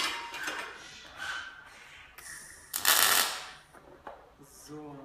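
EWM Picomig 180 Puls inverter MIG welder arcing in pulse mode: short bursts of welding-arc noise, one right at the start and the loudest and longest, under a second, about three seconds in.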